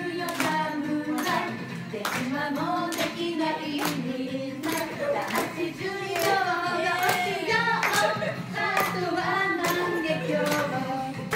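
A woman singing a pop song over backing music, with the audience clapping along in time, a little more than once a second.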